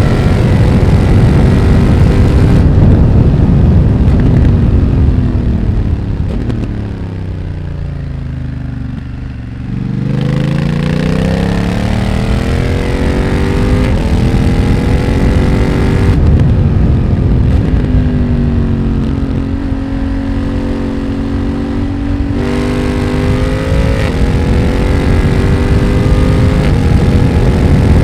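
A BMW F900R's 895 cc parallel-twin engine through a Mivv X1-M aftermarket exhaust, heard while riding. The engine note falls and quietens for several seconds as the bike slows, then climbs again with a step partway up, holds steady at a lower pitch and picks up in steps near the end.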